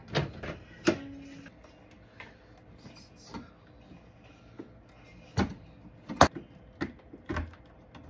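Hands working on an Alienware R10 desktop case and its graphics card: scattered clicks and knocks, with a sharp click about a second in and several more in the second half, the loudest a little after six seconds in.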